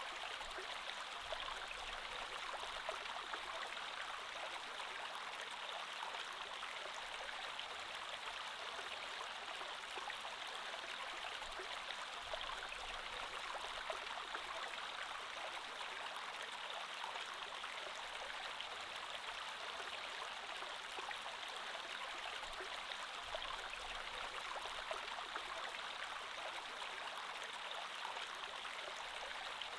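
Creek water flowing steadily over rocks, a constant rushing and trickling with small splashes.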